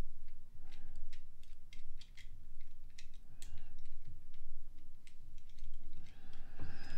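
Irregular small clicks and taps of hard plastic parts on a Transformers action figure as they are worked into place by hand, with a part resisting before it seats.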